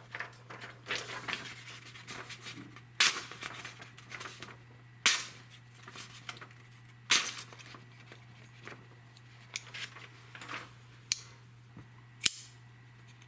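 Kershaw Al Mar AM-4 pocket knife in a cut test: quiet scraping of the blade cutting, broken by sharp clicks of the Speed Safe assisted-opening blade snapping. Three loud clicks come about two seconds apart, then several fainter ones.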